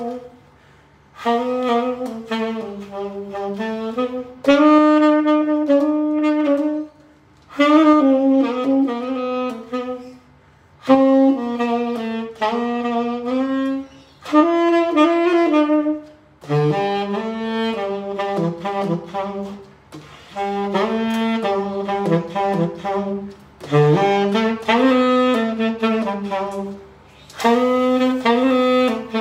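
Tenor saxophone played solo: a slow melody in phrases of about three seconds, with short pauses between them.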